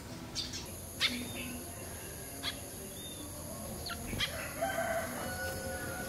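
Quiet outdoor ambience: small birds give a few short, sharp chirps, and a rooster crows faintly about three-quarters of the way through. A steady high whine runs underneath.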